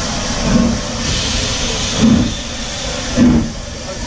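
S&DJR 7F 2-8-0 steam locomotive 53808 starting away with its train: three exhaust chuffs, coming closer together as it gets going, over a steady hiss of escaping steam.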